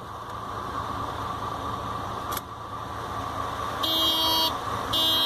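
Vehicle horn sounded twice, two short honks about a second apart near the end, over a steady background noise that grows louder; a sharp click about two seconds in.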